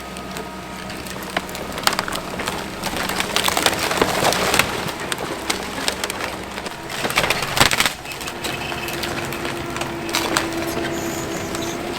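Komatsu 170 excavator crushing the wooden frame of a house: timber cracking, snapping and splintering, with the heaviest crunches about four and seven seconds in. A steady engine tone runs underneath.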